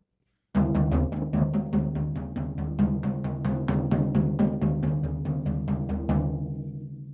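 Floor tom with its batter head removed, its resonant head struck quickly and evenly with a drumstick through the open shell, about five strokes a second, with a low boomy ring that slowly gets quieter. The strokes stop near the end and the drum rings out.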